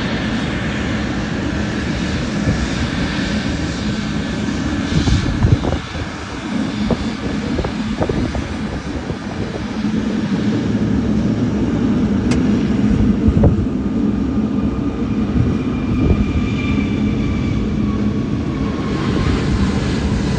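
Boeing 777-300ER's GE90-115B jet engines running, a continuous loud roar with a thin high whine, marked by a few dull thumps, and with whine tones that slowly fall in pitch in the second half.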